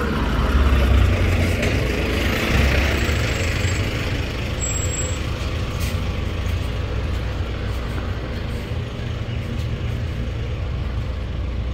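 A heavy truck passing close by: a low engine rumble with a rush of noise that swells over the first three seconds, then settles to a steady low rumble.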